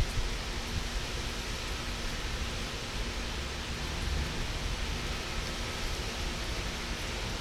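Steady hiss of hurricane rain with wind gusting on the microphone, a low uneven rumble under the hiss.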